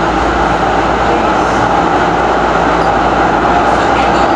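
Nippon Sharyo light-rail train running through a subway tunnel, heard from inside the car: a steady, loud rolling rumble of wheels on rail and motors, with a few faint high squeaks near the end.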